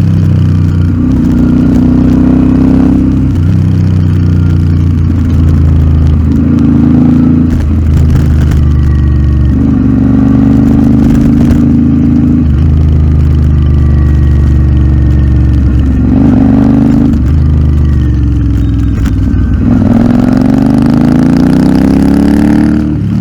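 Royal Enfield Interceptor 650's 648 cc parallel-twin engine running through an aftermarket Nuke exhaust, repeatedly easing off and accelerating, its pitch dropping and climbing several times with steady stretches between.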